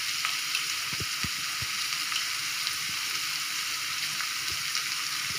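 Potatoes, shallots and chillies sizzling in hot oil in an aluminium pan while being sautéed. A spoon knocks softly against the pan a few times.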